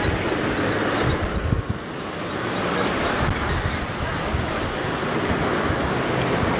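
Busy city street traffic: cars and a bus passing close by, with wind buffeting the microphone.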